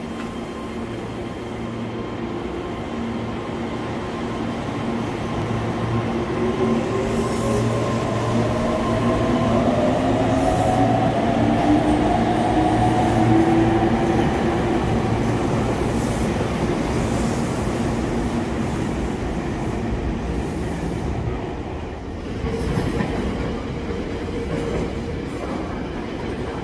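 Red Meitetsu electric train pulling out of the platform: its motor whine rises in pitch as it gathers speed, and wheel and rail noise grows louder to a peak about halfway through, then fades as the train moves off.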